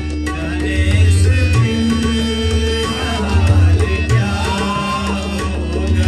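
Live qawwali: tabla playing a steady beat under a held harmonium drone, with singers' voices gliding over it.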